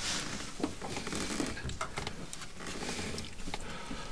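Faint rubbing and small irregular knocks of a rubber heater hose being forced onto the barb of an inline sending-unit adapter, the hose tight and resisting.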